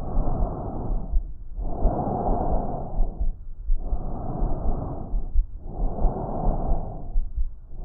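Breath sounds heard through a stethoscope: a rushing noise that swells and fades in four bouts, each about one and a half seconds long, with low thuds beneath.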